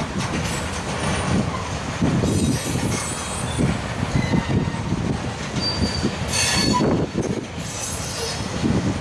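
Loaded covered hopper cars of a freight train rolling past: steady rumble of steel wheels on rail with repeated clicks and knocks over the joints, and a few short high-pitched wheel squeals in the second half.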